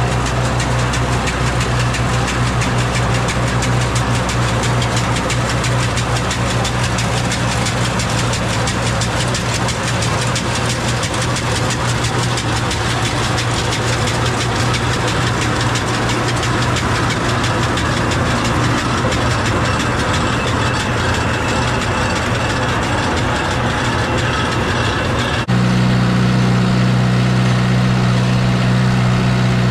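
John Deere tractor engine running while towing a pea picker, the picker's reel and beaters rattling fast as it strips cream pea vines. About 25 seconds in, the sound changes abruptly to a louder, steadier engine hum.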